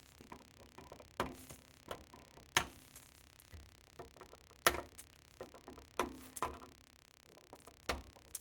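Irregular sharp clicks and taps from hand tools working on a circuit board, about seven in all, the loudest a little over 2.5 s and about 4.7 s in.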